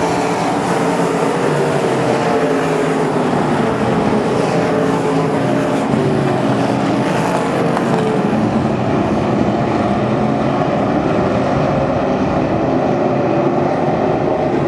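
Several dirt-track race cars running together on the oval, a loud, steady blend of engine notes that waver in pitch as the cars go around.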